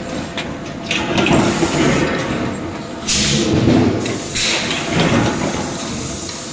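Forging-shop machinery for scaffolding couplers working, with a low clattering rumble and several bursts of hissing air, the longest a little after three seconds in.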